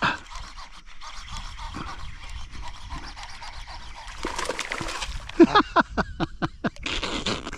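A hooked fish being fought in: fishing reel winding and line working, with a run of short sharp sounds about two thirds through and a brief rush of splashing near the end.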